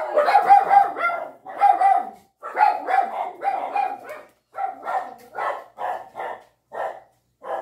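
A dog barking over and over, about two loud barks a second.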